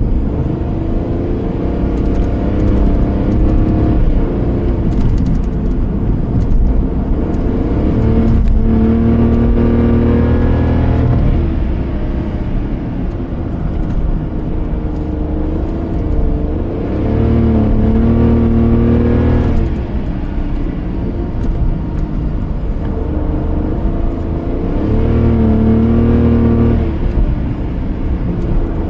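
Car engine and road noise while driving, with the engine note swelling three times under acceleration, about a third of the way in, past the middle and near the end.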